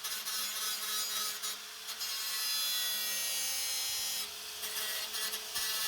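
Handheld power tool abrading the van's sheet-steel cab metalwork: a steady, hissing grind that dips briefly a couple of times as the tool eases off.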